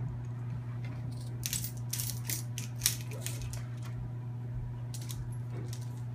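Metallic clicks and rattles of a compact 7075 aluminium Bulldog Bone rope device and its carabiner as climbing rope is tended up through it by hand. There is a cluster of quick clicks in the middle and a few more near the end, over a steady low hum.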